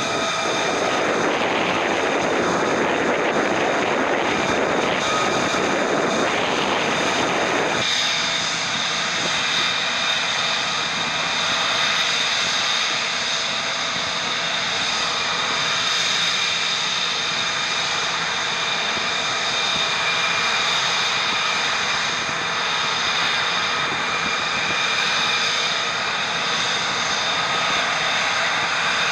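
F-35B jet engine noise on a flight line: a loud rushing jet sound with a steady high whine. About eight seconds in it changes abruptly to a thinner, steady whine.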